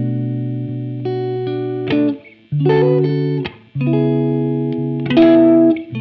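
Background music led by guitar chords, each held for about a second before changing, with two short breaks in the middle.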